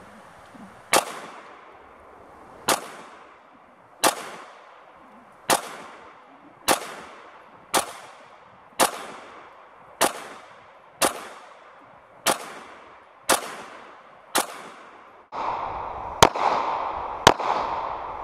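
Walther PPQ M2 9mm pistol firing a string of about fourteen slow, aimed shots, roughly one a second. Each shot is a sharp crack with a short echoing tail. The last two, near the end, sit over a louder steady background hiss.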